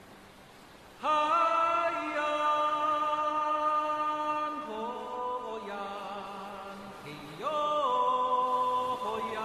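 Background music: a vocal chant with long held notes that slide up into pitch. The voices come in about a second in and again with a fresh phrase near the end.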